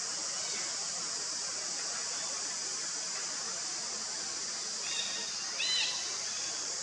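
Steady outdoor background hiss, with two short high chirps about five and six seconds in.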